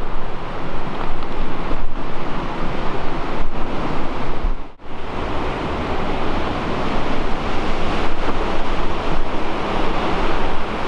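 Wind buffeting the camera's microphone: a loud, steady rushing rumble that drops away for a moment about halfway through, then comes straight back.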